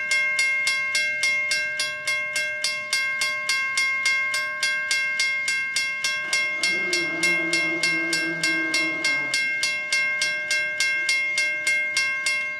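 WCH Mbell electronic grade-crossing bell ringing at about four strikes a second with a bright, ringing tone, and falling silent near the end as the crossing gates come down. About six seconds in, a train horn sounds for about three seconds under the bell.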